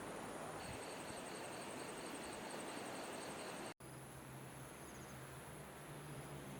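Steady rush of flowing river water with insects chirping in high, rapidly pulsed trills. The sound cuts out for an instant a little under four seconds in, and a low steady hum joins afterwards.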